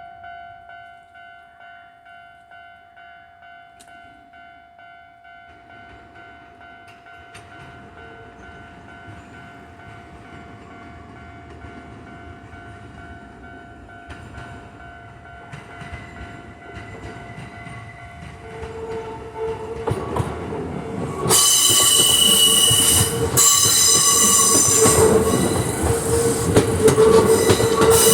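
Japanese level crossing alarm ringing with a steady pulsing tone as a Kintetsu 3200 series electric train approaches. The train's running noise grows louder, then the train passes close by from about 21 seconds in, with a sudden loud rush and high ringing, squealing tones that drown the alarm.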